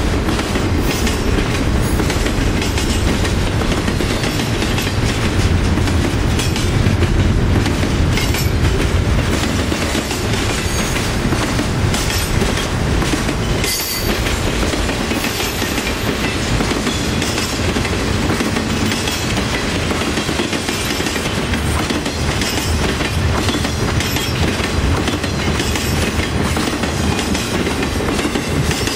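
Double-stack intermodal container train rolling past: a steady rumble of the freight cars, with the wheels clacking over the rail joints.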